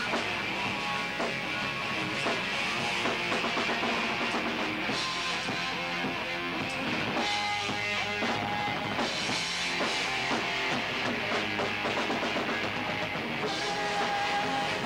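Rock band playing live: electric guitars, bass guitar and a drum kit going steadily, recorded from the room on a camcorder.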